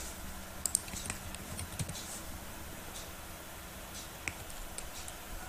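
A few separate keystrokes on a computer keyboard as a username and password are typed in.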